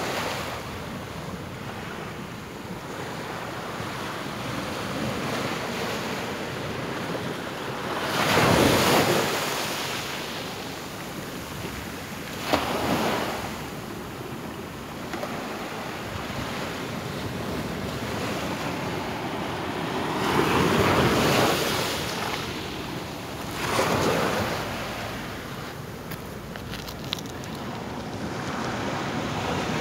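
Atlantic surf breaking on and washing around shoreline rocks, a steady rush of water that swells into louder crashes four times, the first about a third of the way in and the others further on.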